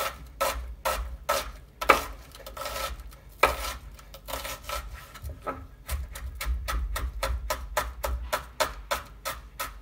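Chef's knife dicing an onion on a wooden cutting board: sharp knocks of the blade against the board, scattered at first, then a quick even run of about five chops a second from about six seconds in.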